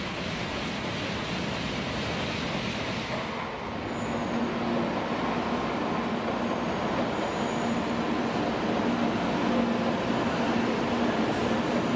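N700-series Shinkansen bullet train rolling along the platform: a steady rumble of wheels on rails. About four seconds in, a steady hum joins it and the sound grows a little louder.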